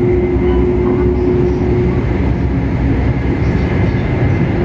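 Kyushu Shinkansen Sakura bullet train running, heard from inside the car near the doors: a loud, steady rumble with a steady hum that stops about two seconds in.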